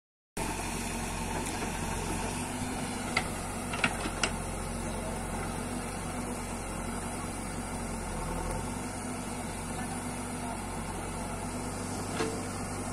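JCB 3DX backhoe loader's diesel engine running steadily as its backhoe digs earth. Three sharp knocks come about three to four seconds in, and a softer one near the end.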